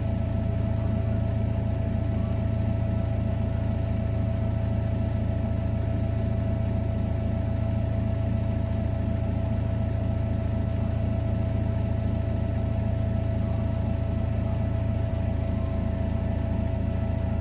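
Kubota tractor's diesel engine running steadily, a constant low hum with a steady whine above it.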